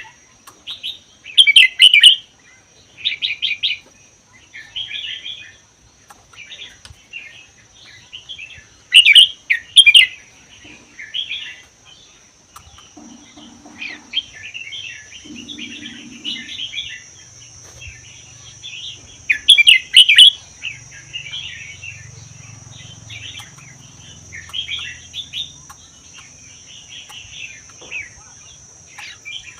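Red-whiskered bulbul singing: short, quick chattering phrases repeated with brief pauses, a few of them much louder than the rest.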